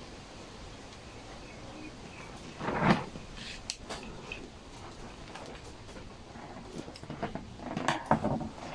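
Handling noises from fitting a trimmer carburetor and its throttle cable by hand: small clicks and knocks of metal and plastic parts and a screwdriver, with one louder knock about three seconds in and a few quick clicks near the end.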